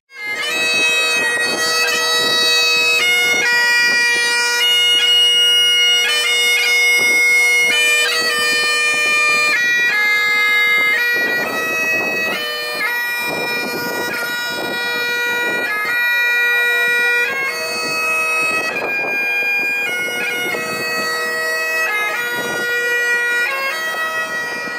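Bagpipes playing a tune, the melody changing note about once or twice a second over one steady unbroken drone.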